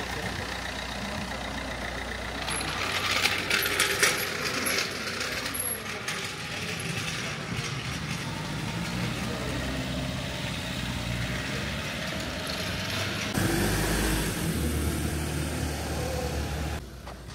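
Fiat Doblo 1.3 driving on a test run, with steady engine and road noise and a spell of knocks and rattles about three seconds in. No squeak is heard from the freshly repaired rear leaf springs.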